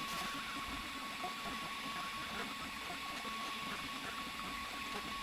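Mini 3018 CNC laser engraver running: its stepper motors and module fan make a steady high whine with a flurry of quick short chirps over a hiss.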